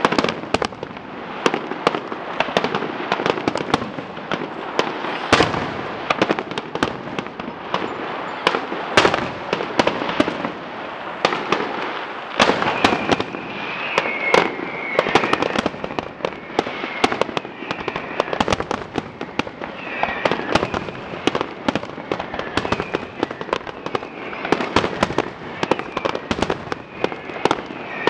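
Fireworks display: aerial shells bursting in a rapid, irregular string of sharp bangs, several a second, over continuous crackling.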